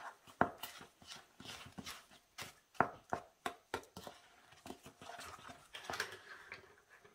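A spoon stirring dry flour mixture in a glass bowl: soft, irregular scraping with light clicks as the spoon knocks the glass, and a sharper knock at the very end.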